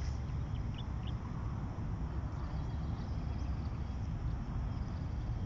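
Outdoor background noise: a steady low rumble, with a few short, faint high chirps from a bird about a second in.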